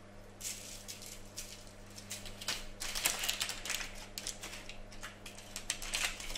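Crackly rustling of baking parchment on a metal baking tray in quick irregular bursts, as oiled parsnip slices are sprinkled with salt from a jar and turned over by hand on the paper. A low steady hum runs underneath.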